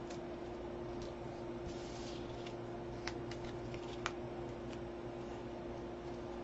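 Faint handling of paper and double-sided tape on a cutting mat: light rustling, with two small clicks about three and four seconds in, over a steady low hum.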